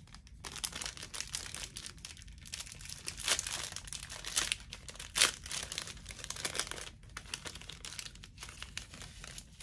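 Small plastic packaging bag crinkling and rustling as it is handled and opened by hand, with irregular crackles and a couple of sharper ones about three and five seconds in.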